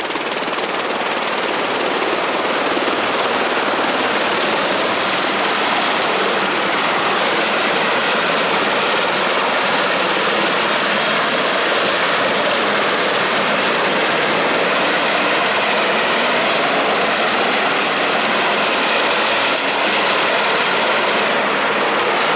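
Helicopter running: a steady rushing noise with a faint high whine, growing slightly louder over the first couple of seconds and then holding steady.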